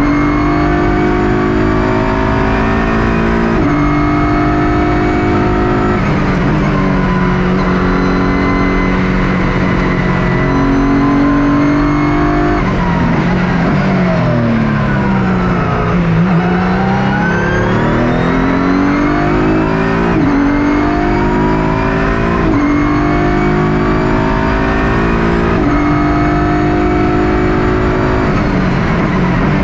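Ligier JS P4 prototype race car's engine, heard from inside the cockpit at racing speed: revs climb and drop sharply at each upshift, fall away steadily about midway under braking and downshifts, then climb again through several quick gear changes.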